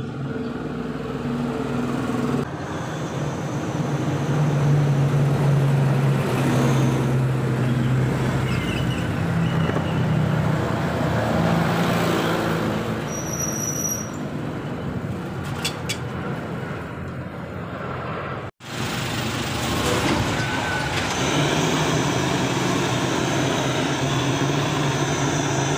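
Hose-fed gas torch burning with a steady roar as its flame is played over a copper radiator core to heat it and show up the leak. The roar drops out for an instant about two-thirds of the way through.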